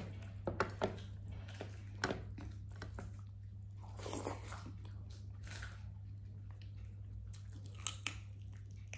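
Biting and chewing crispy fried chicken: a few sharp crunches in the first second, another at about two seconds and one near the end, with softer chewing between, over a steady low hum.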